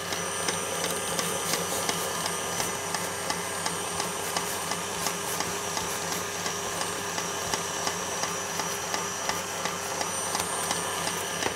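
A knife cutting and crunching through a crisp almond macaroon biscuit along the edge of a metal cake ring, in short repeated clicks about two or three a second. A steady hum of kitchen refrigeration runs underneath.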